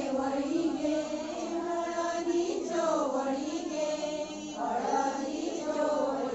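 Group of women singing a Dhalo folk song together, in slow, drawn-out phrases.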